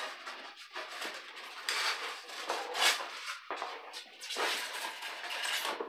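Cardboard box and its packing being handled: irregular rustling and scraping as the flaps are pulled open and hands rummage inside.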